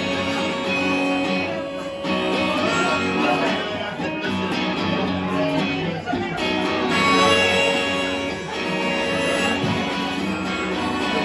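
Electric guitar played through an amplifier, ringing chords and notes of a rock song's instrumental ending, with no singing.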